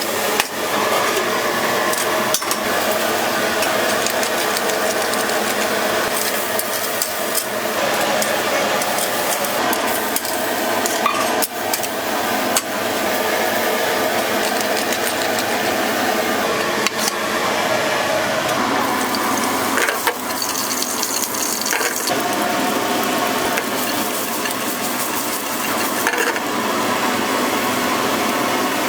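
Food sizzling on a hot griddle, with metal utensils clicking and scraping against the pan again and again.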